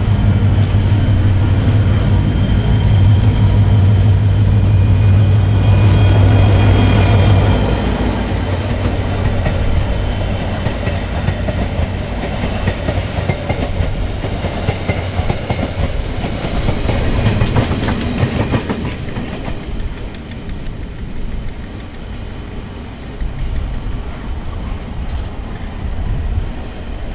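Passenger train passing, led by a KiwiRail DFB-class diesel locomotive: the locomotive's engine drones loudly for the first seven seconds or so. Then the coaches roll by with wheels clattering on the rails, and the sound slowly fades.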